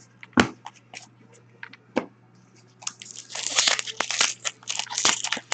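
A few scattered taps and clicks, then from about three seconds in a dense crinkling crackle: a foil trading-card pack wrapper being handled and opened.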